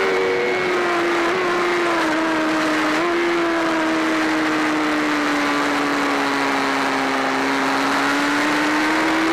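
BMW S1000RR inline-four sportbike engine heard onboard at speed over steady wind rush. Under braking the engine note steps through two downshifts, from fifth to third gear, in the first three seconds. It then sags slowly through the corner and climbs again near the end as the throttle reopens.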